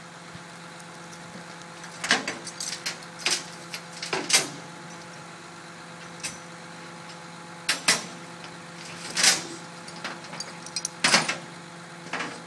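Irregular sharp clanks and knocks, about a dozen in clusters, from recovery workers handling gear at the front wheel of a crashed car. Underneath is a steady engine idling hum.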